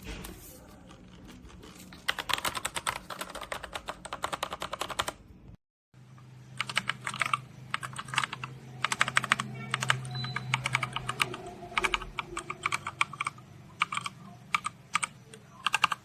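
LEAVEN H96 mechanical keyboard being typed on in fast runs of key clicks. The sound cuts out for a moment about six seconds in, and the bursts of typing carry on after it.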